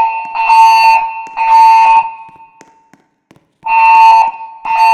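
Pyrotronics MXL fire alarm system sounding its evacuation tone in the temporal-3 pattern. Steady high beeps, about one a second, come in groups of three with a pause of about a second and a half between groups.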